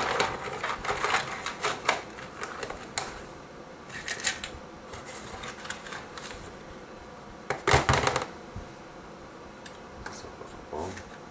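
Small hard plastic parts, 3D-printed links and spacers, clicking and clattering as they are handled and set down. A run of clicks comes in the first couple of seconds, and the loudest clatter is a little under eight seconds in.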